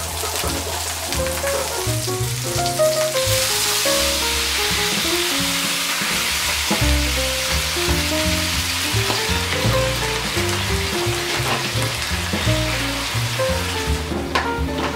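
Salmon fillets and whole garlic cloves sizzling in hot oil in a frying pan. The sizzle grows louder about three seconds in and drops away near the end, with light background music throughout.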